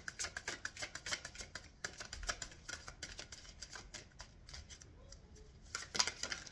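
Tarot cards being shuffled and handled: a quick run of soft snapping clicks that thins out past the middle and picks up again near the end.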